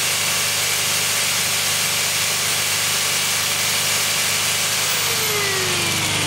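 A 15 amp 4.5-inch angle grinder running on the power of a Honda EU2000 inverter generator, with a steady whine and a hiss; its pitch drops as it winds down about five seconds in. The generator's engine runs underneath in eco mode, holding its load well.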